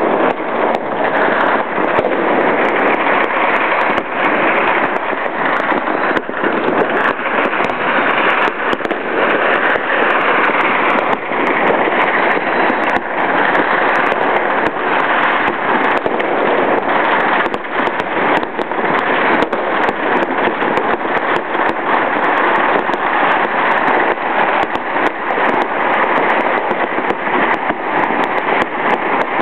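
Dense, unbroken crackle of many firecrackers and fireworks going off at once, countless overlapping sharp bangs with no pause.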